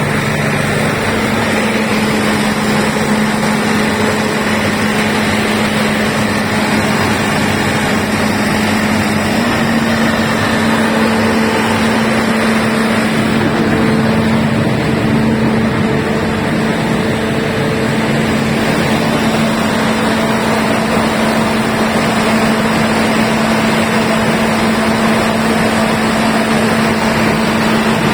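Diesel generator engine running steadily at constant speed, a loud even drone with a steady hum.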